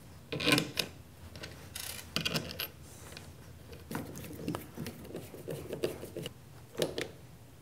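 Small 4-40 machine screws and 3D-printed plastic clamp parts being handled: irregular light clicks, taps and rubbing as the screws are picked up and driven in with a hand screwdriver.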